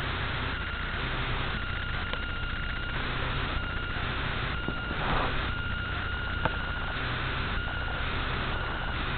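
Steady low hum and hiss with a thin steady whine over it, broken by a few small clicks and a brief louder rustle about five seconds in, likely the camera being handled as it moves.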